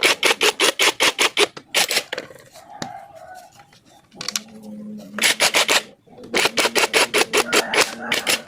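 Rapid rubbing or scraping strokes, about eight to ten a second, in bursts of a second or two with short pauses between. A low steady hum runs under some of the bursts.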